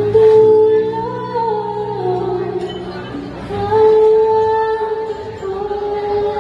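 Woman singing through a handheld microphone, holding long notes with a short break about three seconds in.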